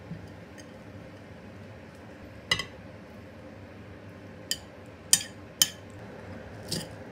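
Metal knife and fork clinking against a ceramic plate: about five sharp clinks spread over a few seconds, the loudest near the middle.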